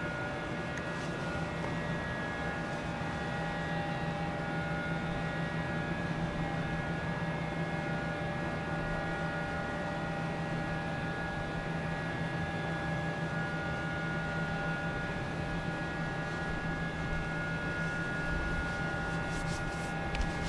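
Steady mechanical hum: a low drone with several thin, steady higher tones over it, at an even level throughout.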